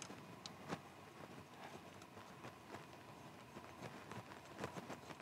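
Faint, scattered light metal clicks and taps as small bolts are threaded in by hand to fasten a steel crank holding tool to the crankshaft nose.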